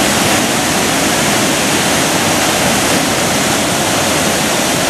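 Several small waterfalls pouring over rock ledges into a narrow canyon: a loud, steady rush of falling water.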